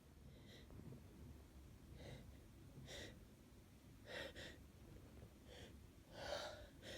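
Faint, short breaths and sniffs from a person with a head cold, coming about once a second, with the loudest breath about six seconds in. These are the breathy lead-up before a sneeze.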